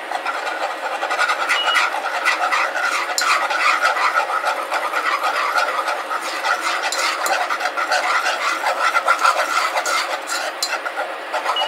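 Wire whisk scraping and clicking rapidly against a saucepan, stirring flour into hot oil to make a roux.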